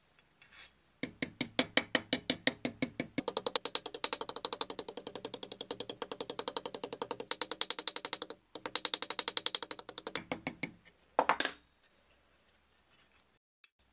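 Small hammer tapping rapidly on the thin pressed-steel fender of a vintage Tonka toy held against a steel bench vise, several light metallic strikes a second, with a brief pause about eight seconds in. A short louder rattle follows near the end.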